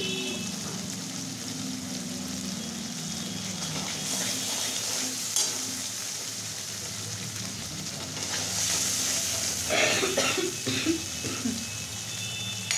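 Spice paste with curd sizzling in hot oil in a kadai as the masala is fried down, oil starting to separate at the edges. About ten seconds in, a metal spatula stirs and scrapes through it a few times.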